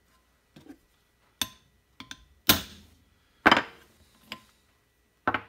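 Hammer tapping a socket to drive the rubber oil seal out of an alloy Norton Atlas crankcase half: about six short, sharp taps at uneven spacing, the two in the middle hardest.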